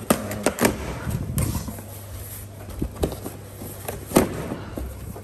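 Cardboard box being opened by hand: its folded top flaps are pulled apart with irregular sharp crackles and scrapes. The loudest snaps come near the start and about four seconds in.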